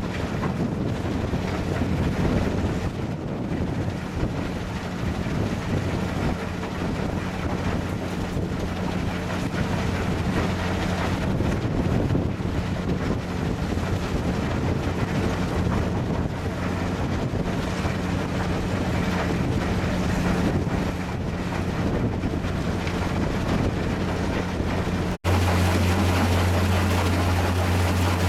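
Fabtec belt feeder and grizzly plant running: a steady low machine hum under a constant rushing noise, with wind on the microphone. About 25 seconds in the sound drops out for an instant and returns with a stronger low hum.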